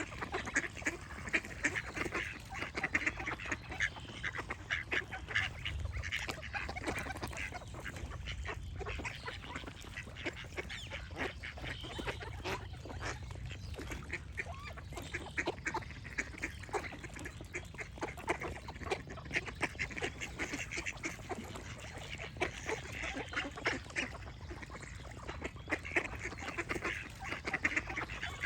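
A flock of ducks quacking and calling without a break, with many short calls overlapping.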